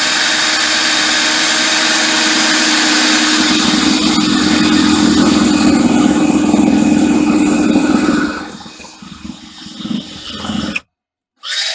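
Cordless drill running steadily at speed, boring a pilot hole up through a boat's deck into a stanchion base. About eight seconds in it stops running steadily and only runs in short, uneven spurts.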